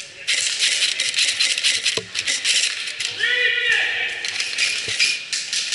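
Airsoft gunfire: dense, irregular rapid clicking of airsoft rifles firing, starting about a quarter of a second in. A short voice call rises over it about three seconds in.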